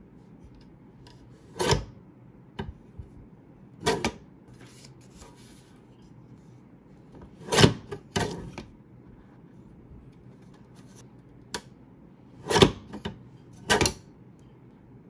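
Lever-arm paper trimmer cutting through sticker sheets: about six short, sharp cuts a few seconds apart, with fainter clicks between.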